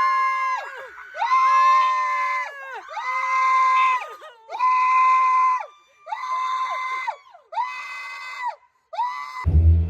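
A person screaming again and again to scare off a bear: about eight long, high-pitched, steady screams of roughly a second each, with short breaths between. Music cuts in near the end.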